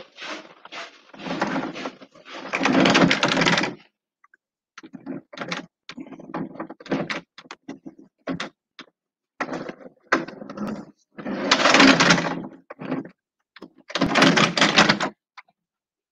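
A person's voice in short, choppy stretches with gaps between them, over a video call connection, mixed with brief knocks.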